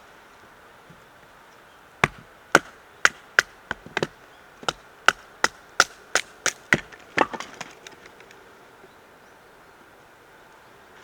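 Wood being chopped: about fifteen sharp strikes, roughly two a second. They start about two seconds in and stop some five seconds later.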